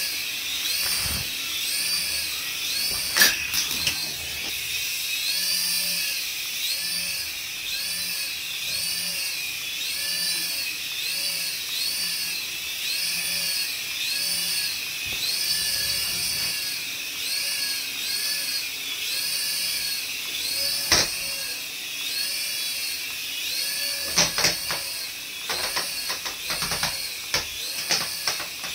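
Small electric motors of a toy coaxial RC helicopter running at flight speed: a high whine that wavers up and down about one and a half times a second as it hovers. A few sharp knocks cut through, one a few seconds in, one past the two-thirds mark and a quick run of them near the end.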